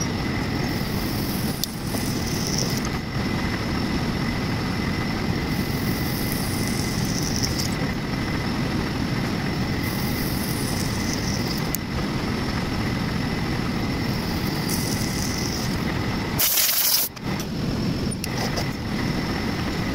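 Drilling machine running steadily as a twist drill bores holes through a steel disc under coolant, with a faint steady whine and a higher hiss of cutting that comes and goes every few seconds. About sixteen and a half seconds in there is a short, very loud hiss.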